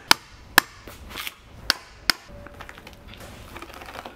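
Hammer striking the sole of a work boot held upside down on a stand: four sharp blows in the first two seconds or so, then lighter clicks and rustling.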